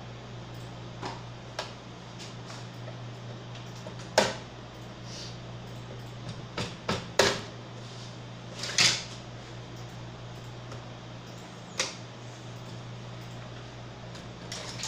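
Printer casing and parts being handled: scattered clicks and knocks, the loudest about four seconds in and a quick cluster a little after, over a steady low hum.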